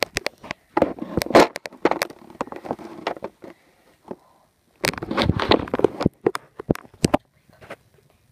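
Close handling noise: rustling with scattered sharp clicks and knocks, in two bursts, one starting about a second in and the other about five seconds in, with a lull between them.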